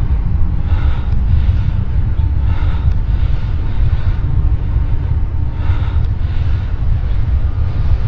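Loud, continuous low rumbling drone of the kind passed around as the mysterious 'strange sounds' heard in the sky, with a fainter higher tone that swells and fades every second or two.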